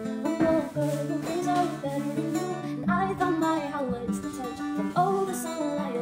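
A woman singing to her own acoustic guitar, strumming chords as she sings.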